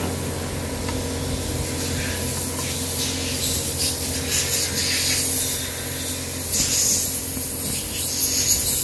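Steady low workshop hum with intermittent rubbing and hissing noises that grow busier after about three and a half seconds, from mechanics handling parts on the top of a bare Hyundai Elantra engine.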